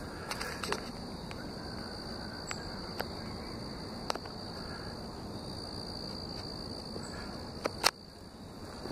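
Steady high-pitched insect trill, typical of crickets, with a few sharp clicks from footsteps or handling, the loudest a double click near the end.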